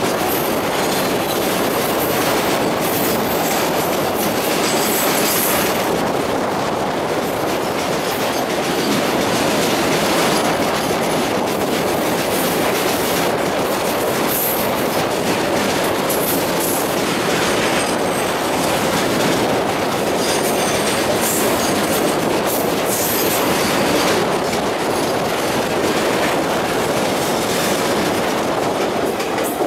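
A train's wheels running steadily on the rails, a constant rumble with clickety-clack over the rail joints and brief high screeches of wheel on rail now and then.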